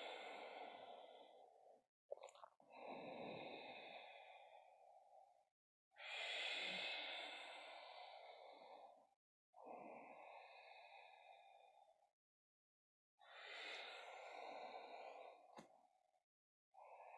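A woman's slow, deep breathing, paced to cat-cow spine movements. Long inhales and exhales alternate, about six breaths of a few seconds each, with brief silences between. A faint click comes twice.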